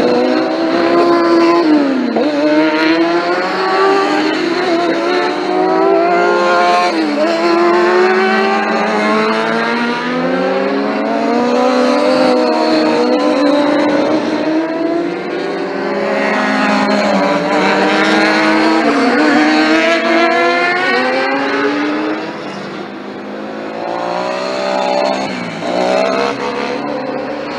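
Several high-revving superbike engines at full throttle on a race track, one after another, their notes climbing steadily and dropping sharply at each upshift, about five times over the stretch, with engine notes overlapping throughout.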